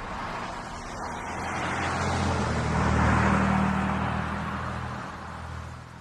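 A motor vehicle passing by: engine hum and tyre noise swell to a peak about halfway through, then fade away.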